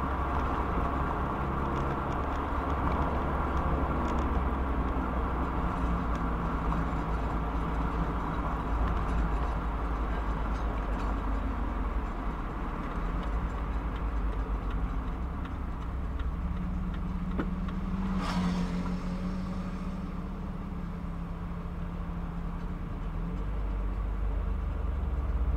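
Mazda MX-5's four-cylinder engine running under way, heard from on board with steady road noise, its note rising and falling with the revs. There is a single sharp knock about two-thirds of the way through.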